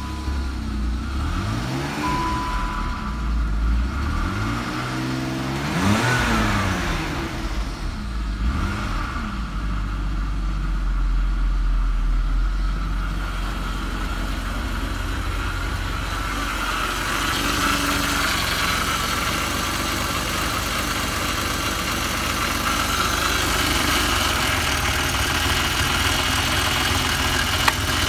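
BMW E39's 2.5-litre straight-six petrol engine, just started cold, revved up and down several times in the first nine seconds or so and then idling steadily. A short dashboard chime sounds about two seconds in. Toward the end the engine is heard close up from the engine bay, with more high-pitched mechanical chatter.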